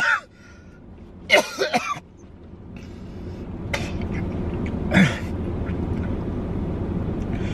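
A man's staged coughing and hacking, the fake cough of a blood-packet prank. Two loud bouts come in the first two seconds and fainter ones follow over a steady background rumble.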